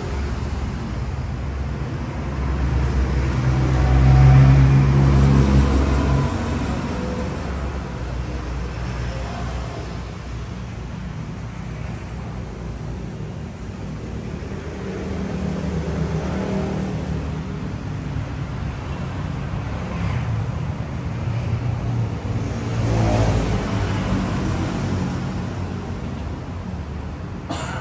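Bass-heavy music played loud through Huper AK15 speakers, with low bass notes the loudest part and a swell about four seconds in.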